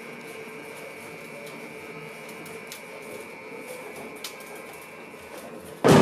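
Hard plastic wheels of a child's ride-on tricycle rolling over a hard tiled floor: a steady rumble with a few scattered clicks. Right at the end a loud gong-like hit comes in suddenly.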